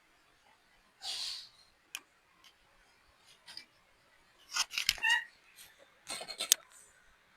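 A baby monkey squeaking briefly, a few short high calls amid rustling and scratching clicks. A breathy hiss comes about a second in, the squeaks near the middle, and a quick run of clicks follows.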